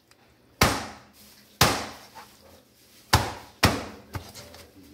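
Meat cleaver chopping through a raw seasoned iguana onto a cutting board: four heavy chops, the last two close together, then a lighter one near the end.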